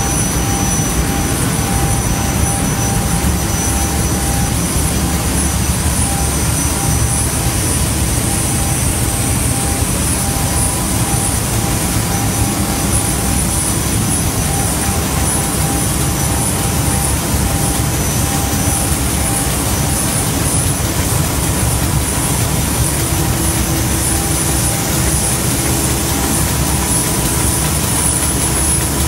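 T-type baby diaper making machine running at production speed: a loud, steady mechanical din from its rollers, conveyors and cutting units, with steady high-pitched whines over it.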